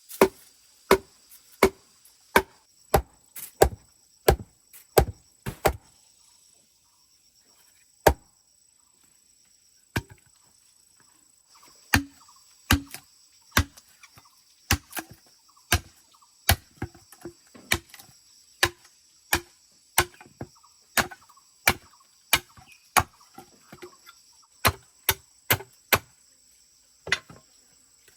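Repeated chopping strokes: sharp single knocks of a blade striking, roughly one to two a second, with a pause of a few seconds about a third of the way in.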